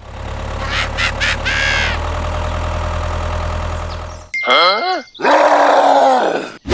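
A low steady engine-like drone for about four seconds, then two short vocal sound effects: a wavering pitched cry followed by a longer rough grunt.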